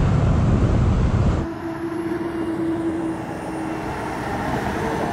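Mercedes Actros lorry's 10.7-litre diesel engine pulling hard under acceleration with a heavy low rumble. About a second and a half in, the sound drops abruptly to a lighter running note, with a steady hum held for about two seconds.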